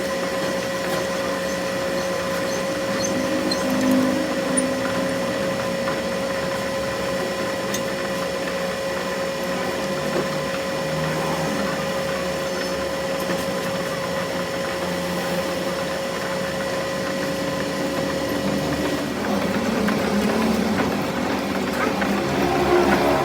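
A workshop machine running steadily with a constant hum, while irregular working noises come and go; some of the hum drops out about nineteen seconds in.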